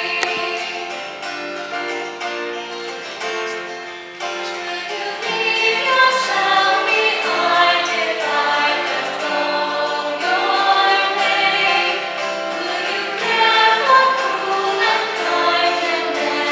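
A hymn sung by a choir with instrumental accompaniment. Held instrumental notes open it, and the voices come in about four seconds in.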